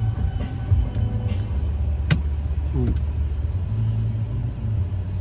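Car engine idling, heard inside the cabin as a steady low rumble, with one sharp click about two seconds in.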